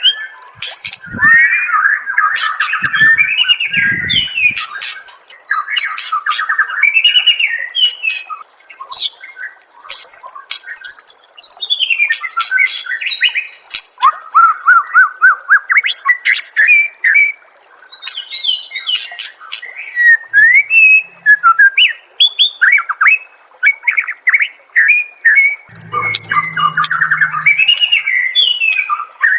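White-rumped shama (murai batu) singing a long, varied song of fast trills and sliding whistles, with brief pauses between phrases.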